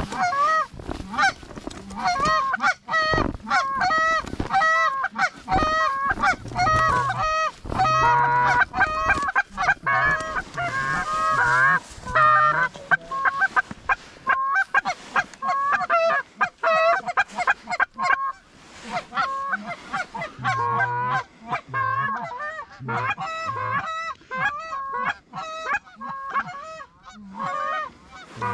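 Canada goose honks and clucks, rapid and overlapping, several calls a second almost without pause.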